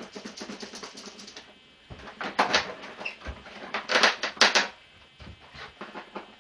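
Gaffer tape being pulled off a motorcycle's plastic panels: rapid crackling clicks, with two louder longer rips in the middle.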